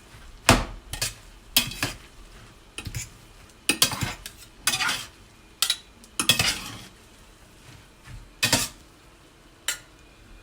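A metal utensil scraping and clinking against the electric skillet as the cooked glass noodles are stirred and mixed, in about ten irregular strokes.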